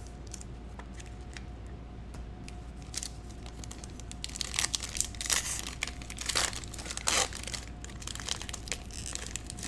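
Silvery foil wrapper of a Panini Prizm football card pack crinkling in the hands. There are a few faint clicks at first, then repeated loud bursts of crinkling from about four seconds in as the pack is worked open.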